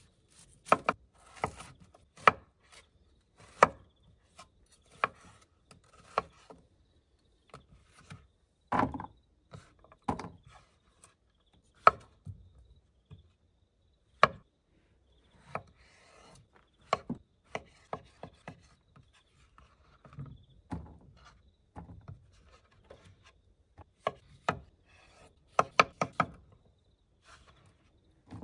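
Irregular knocks and chopping strokes on wood, one every second or two with pauses, and a quick run of several strokes near the end, with light scraping between them.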